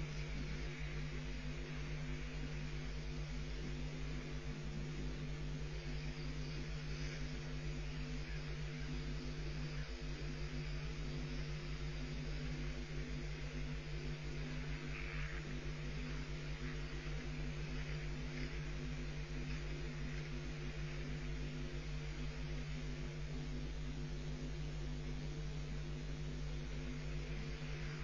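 Steady electrical hum and hiss on a nest webcam's audio feed.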